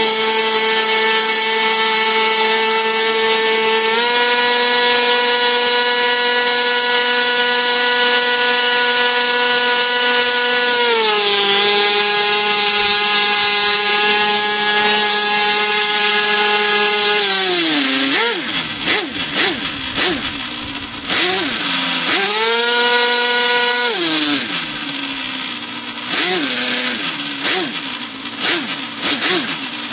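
Thunder Tiger GP42 two-stroke glow engine, ported and running on a tuned pipe with a 9x7 propeller, holding a high, steady full-throttle pitch. A little past halfway it is throttled back and the revs drop and waver low, rising briefly once or twice, then it climbs back to full speed near the end.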